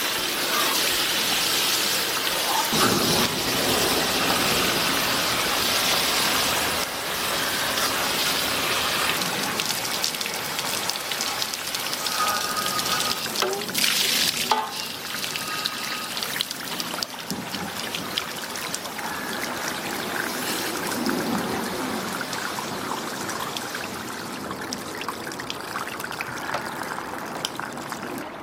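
Water from a hose spraying and splashing into a metal tray of fish, then spattering onto concrete and running off, a steady rush of water that drops a little after about seven seconds, with a brief louder splash about halfway through.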